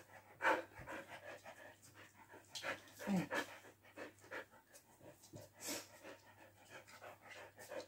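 Border collie panting close by in quick, irregular puffs, with a few stronger breaths along the way.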